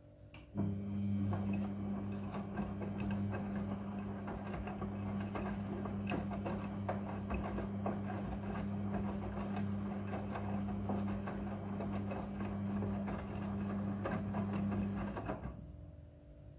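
Midea front-loading washing machine running: a steady low electric hum with water gurgling and rushing over it. It starts suddenly about half a second in and cuts off near the end.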